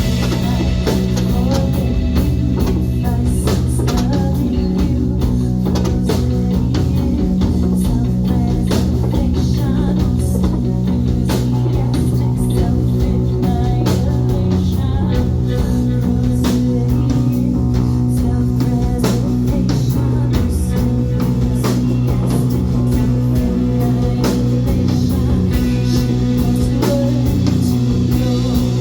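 Rock song with electric guitar, bass guitar and a drum kit playing at a steady, even level, with sustained bass notes under a constant beat.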